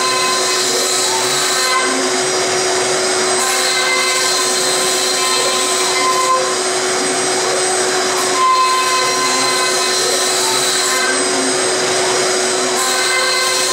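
Five-axis CNC milling machine's spindle running steadily with a whine while its end mill cuts into the top of a wooden log, with the noise of wood being chipped away. A higher note in the whine comes and goes every few seconds as the cutter moves along its path.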